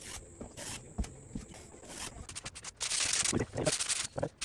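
Scraping and rubbing on drywall: a few faint ticks, then from about halfway in a run of louder hissy scraping strokes.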